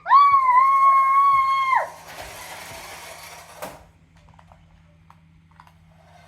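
A young child's high-pitched squeal, held steady for nearly two seconds and dropping away at the end, followed by a single sharp click.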